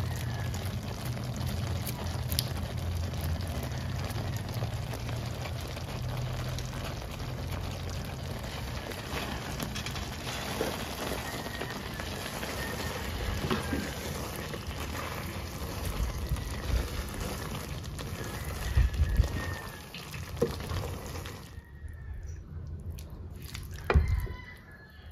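Creamy pasta sauce bubbling in a non-stick pan, a steady wet simmer with a low hum under it. About three quarters of the way through it turns quieter, and a silicone spatula stirring and lifting the spaghetti gives a few soft knocks against the pan.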